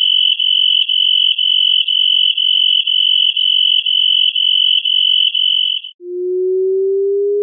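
High-pitched electronic tone beeping with short breaks about twice a second. About six seconds in it stops and a low, single pure tone starts, slowly rising in pitch.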